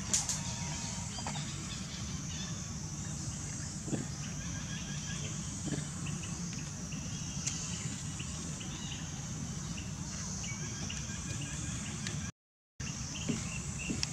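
Steady outdoor ambience: a continuous high-pitched insect drone with a few faint bird chirps over a low background rumble. The sound cuts out completely for about half a second near the end.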